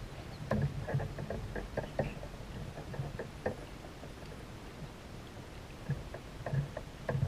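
Water and hull sounds from a kayak on the water: small splashes, knocks and ticks against the hull. They come in clusters from about half a second in to about three and a half seconds, and again near the end, over a steady low wash.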